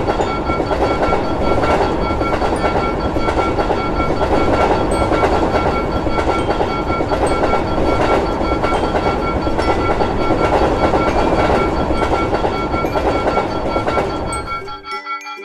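Trains passing over a level crossing: a loud, steady rumble with fast wheel clatter that cuts off suddenly near the end as the last train clears. Steady high ringing tones sound over it throughout.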